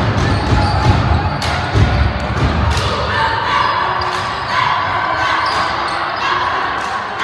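Basketball bouncing and knocking on a hardwood gym floor during play, a string of irregular sharp thuds, over the chatter of spectators echoing in the gym.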